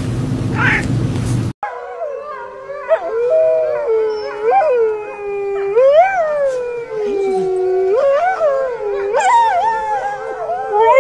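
A wolf and a dog howling: long drawn-out howls that rise and fall in pitch, two voices overlapping near the end. Before them, a steady low hum cuts off abruptly about a second and a half in.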